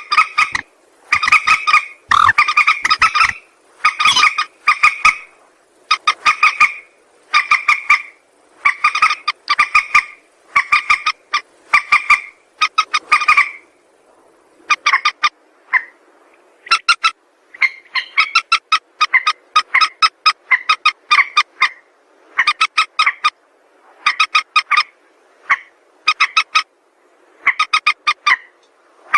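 Mandar sawah, a paddy-field rail, calling over and over: short phrases of fast, rattling, croaking notes about once a second, with a brief break about halfway through. It is loud, the kind of repeated call played as a lure for trapping.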